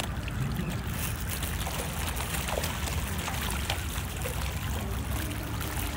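Continuous churning and splashing of a crowd of fish feeding on floating bread at the water's surface, many small splashes and slurps close together, over a steady low rumble.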